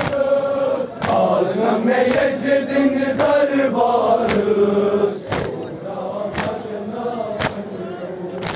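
Crowd of men chanting a Muharram lament (nauha) together, with sharp chest-beating (matam) strikes in unison about once a second. The chanting eases somewhat after about five seconds.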